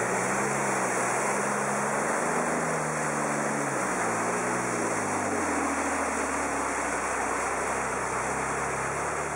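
Jeep Wrangler's engine revving as it pushes through a deep mud hole, the pitch climbing and dropping a couple of times in the middle. Muddy water rushes and splashes steadily against the body and wheels.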